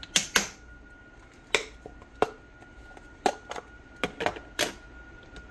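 Plastic food storage container and its snap-lock lid being handled on a glass cooktop: about nine sharp plastic clicks and clacks at irregular intervals.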